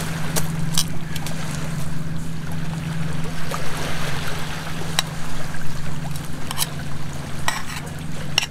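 Large lake waves washing steadily onto a pebble shore, a continuous loud rush, with a few sharp crackles from the small wood fire in the camp stove.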